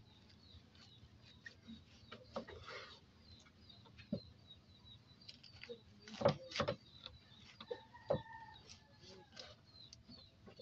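Kitchen knife cutting into a raw banana heart and knocking on a wooden board, a scatter of short cuts and taps, loudest about six seconds in. A chicken calls in the background, with small birds chirping.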